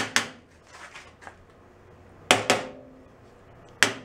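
Hammer blows on sheet steel: sharp metallic strikes with a short ring, coming in quick pairs about two seconds apart, as a body hammer taps a new steel bracket into place on a rusted sheet-metal panel.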